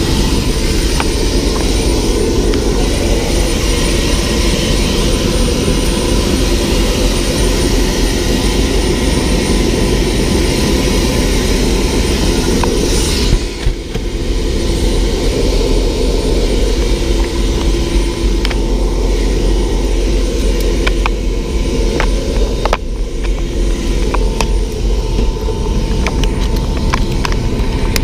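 Helicopter engine and main rotor running on the ground before lift-off, heard from inside the passenger cabin: a loud steady drone with a thin high whine over it. Light clicks and knocks from handling come in the second half.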